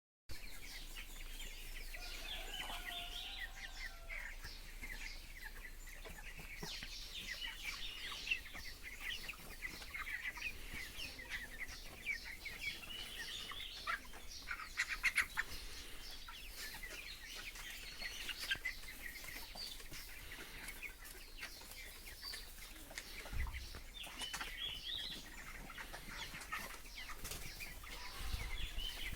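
A flock of three-week-old broiler chickens cheeping continuously in many short high calls, with wings flapping and scuffling among them. A faint steady low hum runs underneath.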